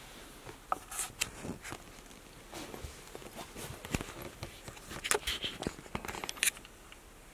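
Jackets on hangers on a clothes rack rustling, with irregular light clicks and knocks, loudest a little past the middle.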